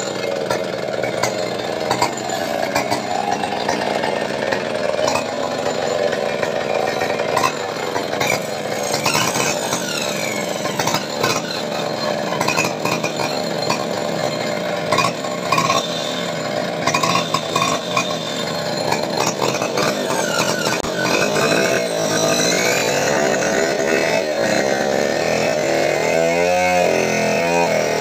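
A small motor running with scattered knocks and clatter; near the end it revs up, rising in pitch.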